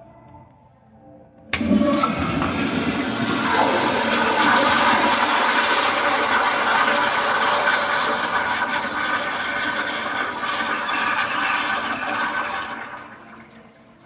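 Commercial toilet with an exposed flushometer valve flushing. The valve opens with a sudden rush of water about a second and a half in. The water rushes steadily through the bowl for about eleven seconds, then tapers off as the valve shuts near the end.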